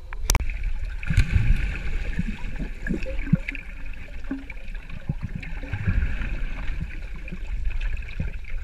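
Muffled underwater sound of a swimming pool heard from a submerged camera: continuous gurgling, bubbling water with irregular low thumps from swimmers' kicks and strokes, after a sharp knock just after the start.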